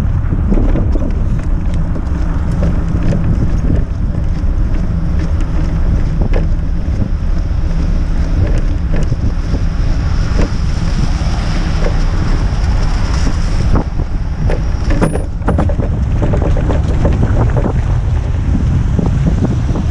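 Wind buffeting the microphone of a camera on a moving front-box cargo bike, with a steady rush of tyres on a wet, slushy road and scattered small clicks and rattles.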